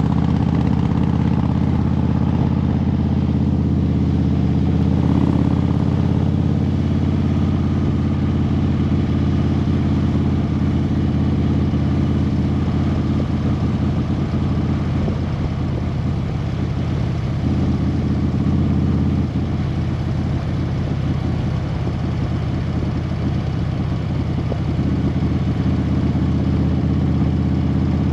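An engine running steadily with a low, even hum that holds the same pitch throughout.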